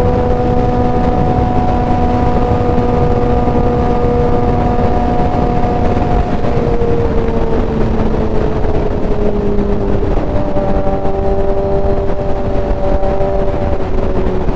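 Suzuki GSX-R 750's inline-four engine running at highway cruise under a heavy rush of wind. Its pitch eases down gradually through the second half as the bike rolls off.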